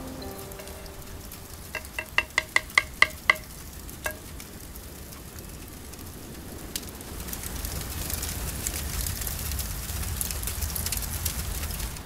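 A spoon knocks quickly about eight times against a clay cooking pot, with a ringing tone, around two seconds in, and once more a little later. From about seven seconds, a crackling sizzle from the pot grows louder.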